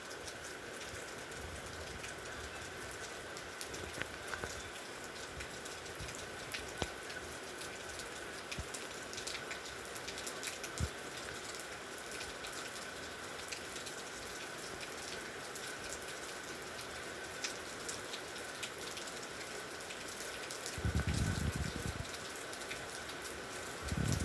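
Heavy rain falling steadily, with many individual drops ticking on hard surfaces. A faint steady high tone runs underneath, and there is a brief low rumble near the end.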